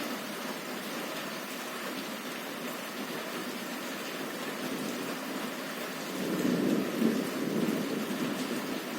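Heavy rain on a window, falling steadily. A roll of thunder swells up about six seconds in, peaks about a second later and dies away over the next second or two.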